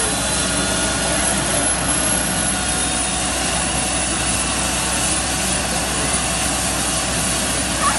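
MD 902 Explorer helicopter running on the ground with its main rotor turning, a steady, unbroken engine and rotor noise.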